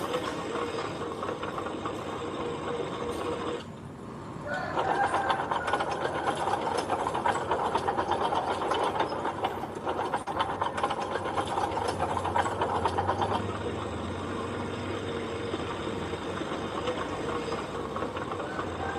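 Heavy machinery running with a rapid clatter. It drops off briefly about four seconds in, comes back louder for about nine seconds, then settles to a steadier run.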